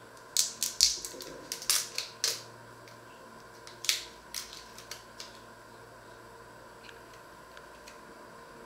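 Dry, papery onion skins crackling and snapping as an onion is peeled with a small paring knife. The sound comes in two runs of quick sharp crackles in the first half, then goes quiet.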